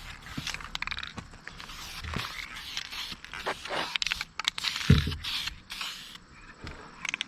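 Aerosol spray-paint can hissing in short bursts, with clicks and handling knocks, and one heavy thump about five seconds in.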